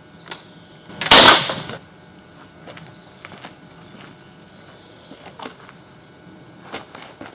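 Homemade slingshot crossbow with thick 20 mm spear-gun rubber bands (about 200 lb draw) shooting a 22 mm lead ball against a stone: one loud sharp crack about a second in that fades within half a second. Afterwards a few faint footsteps on gravel.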